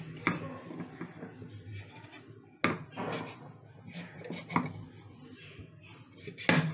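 Raw green papaya being cut and peeled on a boti, a fixed curved kitchen blade: soft scraping of the blade through the skin and flesh, with a few sharp knocks.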